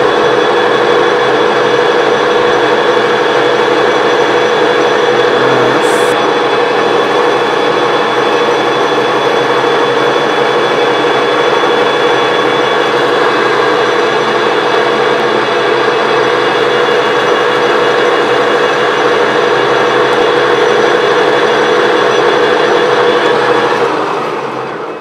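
Lathe running steadily, turning a part with the cutting tool against the work, a constant mechanical hum with a steady tone in it. Near the end it is switched off and winds down.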